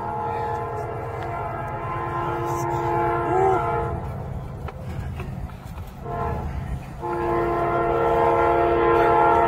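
A horn sounding two long blasts, each a chord of several steady notes: the first lasts about four seconds, the second starts about seven seconds in. A steady low hum runs beneath.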